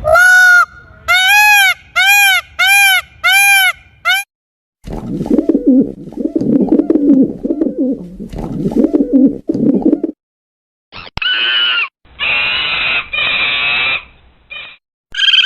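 A run of different animal calls, one after another. First come about six high calls in quick succession, each rising and falling in pitch; then a stretch of low calls lasting about five seconds; then a few shorter, higher calls near the end.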